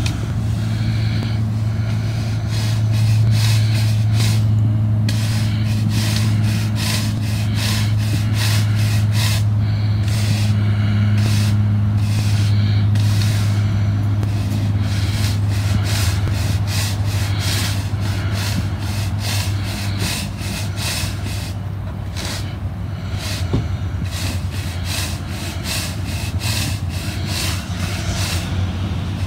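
Stiff push broom scrubbing dry absorbent powder back and forth over asphalt, in quick repeated strokes, over the steady low hum of an idling vehicle engine.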